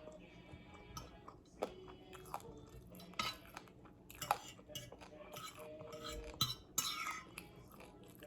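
Close-up eating sounds: chewing with irregular crunches and clicks, mixed with light clinks of dishes and cutlery.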